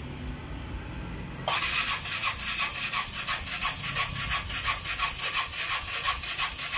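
Piaggio Ape City's fuel-injected engine cranking on the starter, a rapid even churning that starts about a second and a half in and runs for about six seconds without the engine firing. The engine won't start because the fuel tank is empty.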